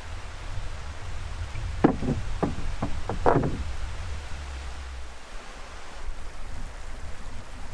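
A quick run of about five hollow knocks on a canoe's hull, starting about two seconds in and lasting about a second and a half, over a low steady rumble.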